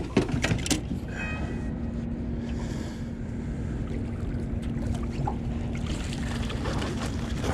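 Steady wind and water noise around a small aluminium fishing boat, with a faint steady hum through most of it and a few sharp clicks in the first second.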